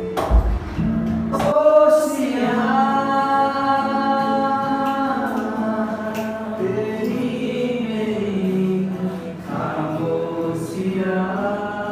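Men singing a slow song together to an acoustic guitar, drawing out long held notes.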